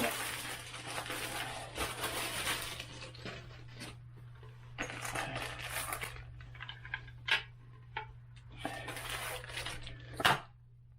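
Metal toilet seat hinges and screws being handled, clinking and rattling: a dense stretch of clatter for the first few seconds, then a few separate clicks, the loudest near the end. A steady low hum runs underneath.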